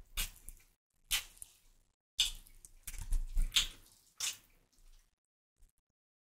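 Close-miked eating sounds: wet chewing and lip smacks in short bursts, a longer run of chewing in the middle, from a person eating piri piri chicken and rice.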